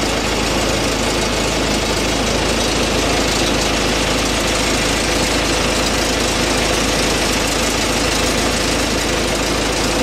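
An engine running steadily at an even speed, with a faint steady hum underneath.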